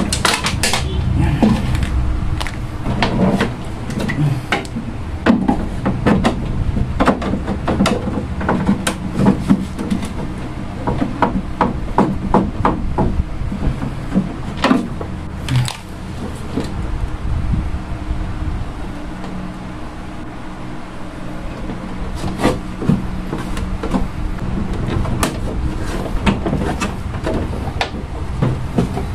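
Irregular clicks, knocks and rattles of the plastic housing and parts of a tower air cooler being taken apart by hand. They are thick in the first half, thin out in the middle and pick up again near the end.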